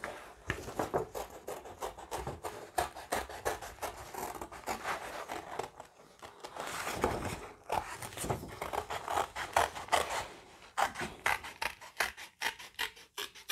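Scissors snipping through patterned designer paper in many short cuts, with the sheet rustling as it is handled.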